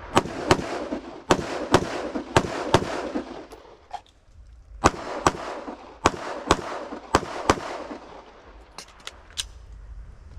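Twelve gunshots in a rifle-to-pistol transition drill: six rifle shots in three quick pairs, a pause of about two seconds while the shooter switches to the pistol, then six pistol shots in three pairs.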